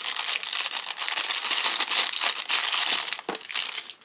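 Packaging crinkling and crackling loudly as it is handled and opened to take out a camera battery. The crackling stops just before the end.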